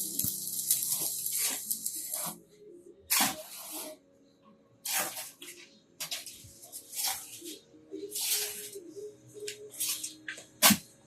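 Electric arc welding in short bursts: a hissing crackle that starts and stops about a dozen times, each burst under a second long, over a faint steady hum.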